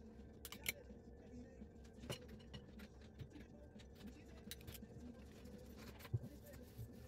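Faint scraping and a few light clicks of a utensil working sticky cookie dough in a glass mixing bowl, over a faint low hum.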